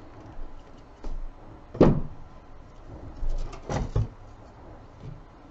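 Wire cutters snipping thin beading wire and being handled on a tabletop: small clicks and knocks, with two louder thuds about two and four seconds in.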